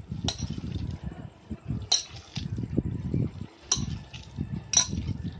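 A hand squishing and mashing a wet mix of grated vegetables and flour in a steel bowl, with four sharp metallic clinks against the bowl spread through it.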